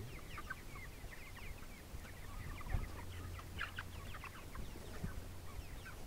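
A flock of white broiler chickens in a pen calling, with many short, high clucks and peeps overlapping.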